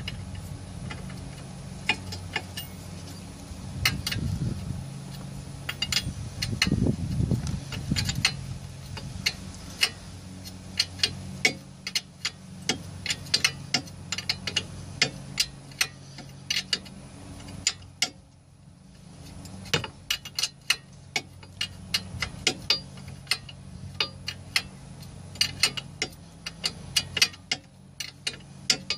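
Hand wrench clicking and clinking on metal as a nut on the lower control arm is turned off, in many sharp, irregular ticks, over a steady low hum.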